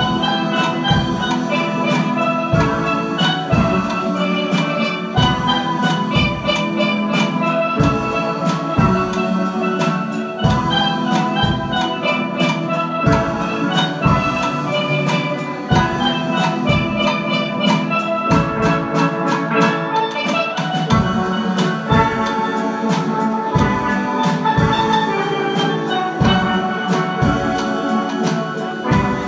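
Steel band playing: many steelpans sounding a melody and chords over a steady drum beat.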